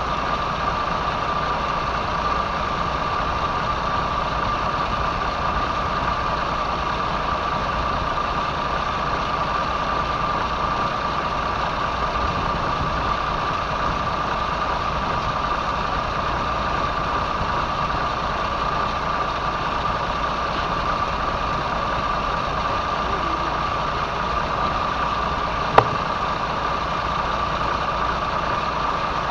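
Boat's inboard engine idling steadily, heard close up, with a constant whine over the running noise. A single sharp click near the end.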